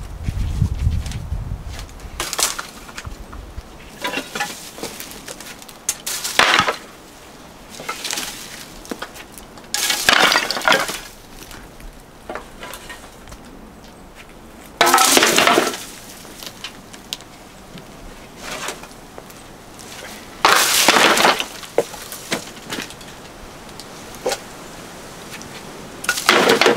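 Scrap debris, corrugated tin sheets among it, being cleared and tossed onto a pile: a series of about seven loud clattering crashes a few seconds apart, each lasting up to a second, with small knocks and clinks between them.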